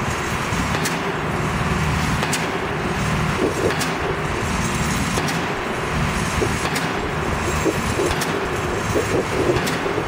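Steady low rumble of engines, with faint ticks about every second and a half.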